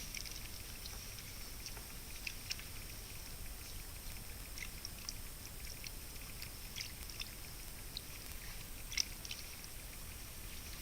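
Short, high bird chips scattered irregularly over the steady hiss of a trail camera's microphone, the loudest about nine seconds in.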